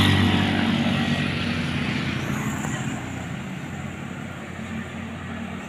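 A motor vehicle's engine passing close by and fading away over the first three seconds, leaving a steady low traffic hum.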